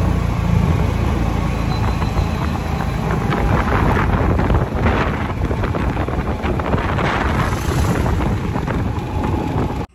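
Wind buffeting the microphone: a loud, steady rush with a heavy low rumble.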